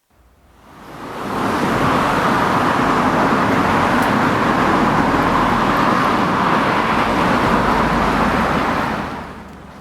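Road traffic noise: a steady rush of passing vehicles that fades in over about a second and fades out near the end.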